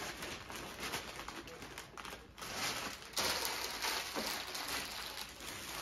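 Wrapping paper and gift packaging rustling and crinkling, with a louder stretch of crinkling starting about three seconds in.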